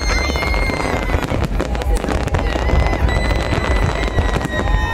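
Continuous fireworks barrage: rapid overlapping bangs and crackling from many shells bursting at once, with a steady high whistle running through it.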